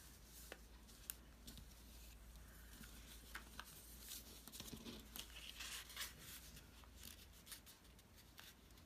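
Faint rustling and scattered light clicks of paper being handled.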